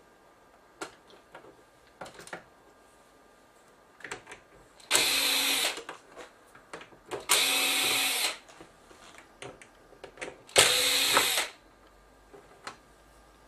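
Electric screwdriver backing out screws from an LCD TV's plastic back cover: three short runs of about a second each, with a steady motor whine, about five, seven and ten and a half seconds in. Light clicks and knocks of screws and the casing being handled come between the runs.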